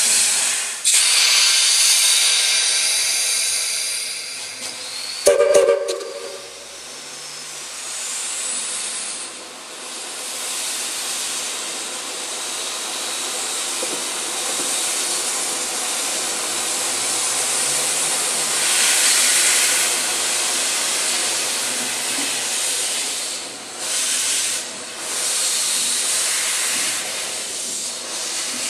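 Steam locomotive venting steam from its open cylinder cocks: a continuous loud hiss that surges and eases. About five seconds in there is a short, sharp toot of the steam whistle.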